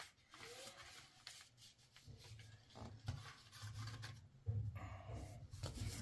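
Faint rubbing and scraping handling noises with scattered clicks; a low hum comes in about two seconds in.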